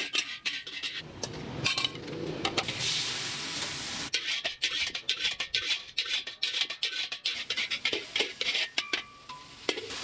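Metal spatula knocking and scraping against a wok as char koay teow is stir-fried, in a quick irregular run of clanks with plates and utensils clinking.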